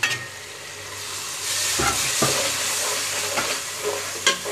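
Diced tomatoes sizzling in hot ghee with fried onions in a metal pot, stirred with a metal slotted spoon that knocks against the pot several times. The sizzle swells about a second and a half in.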